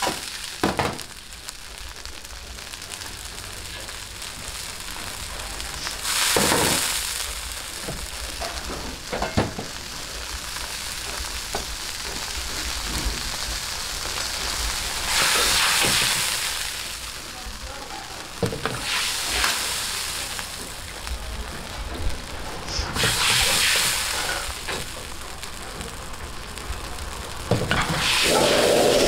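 Scallions, chili and garlic sizzling in hot oil in a carbon-steel wok, with several louder surges of sizzling and a few sharp knocks of a metal ladle against the wok. Near the end a louder, steady rushing sound comes in.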